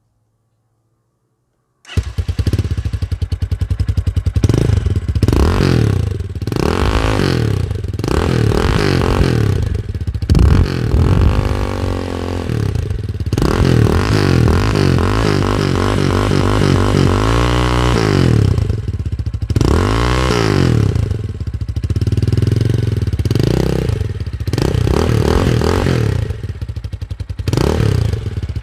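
Italika RT 250 motorcycle's 250 cc engine revved again and again through its exhaust, each rev rising and falling in pitch, with a longer rev held high about two-thirds of the way through. The sound cuts in abruptly after about two seconds of silence.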